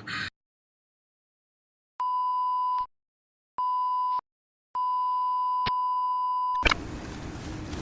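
Three steady electronic beeps at one pitch: two short ones, then a longer one of nearly two seconds with a brief click in it. A steady noisy hiss starts right after the last beep, near the end.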